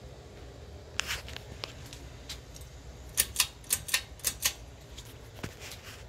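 Harbor Breeze Merrimack II 52-inch ceiling fan running steadily, under a series of sharp, irregular clicks. A few come about a second in, and a close run of about seven louder ones between three and four and a half seconds in.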